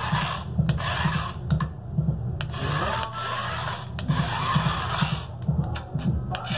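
Remote-control toy car's small electric motor and plastic gears whirring in uneven spurts as it drives, with a few sharp clicks.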